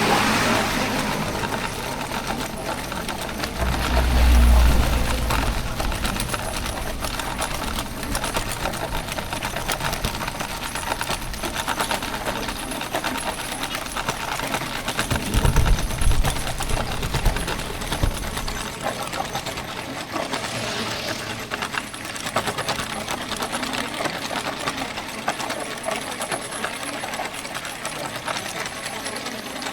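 Steel ball-bearing wheels of a homemade wooden cart loaded with firewood, rattling and clattering continuously as it rolls over the road. A low rumble swells briefly about four seconds in and again around fifteen to eighteen seconds in.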